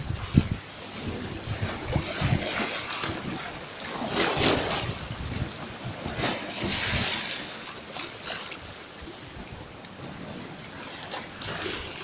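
Small waves washing in and sloshing around boulders in shallow surf, swelling and easing several times. A few short low thumps come near the start.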